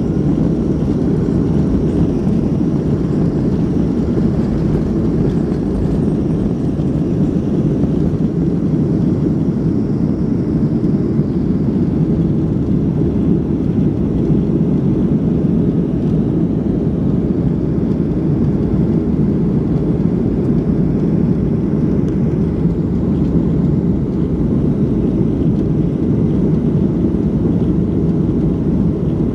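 Steady low drone of a Boeing 737 in flight, engine and airflow noise heard inside the passenger cabin, unchanging throughout.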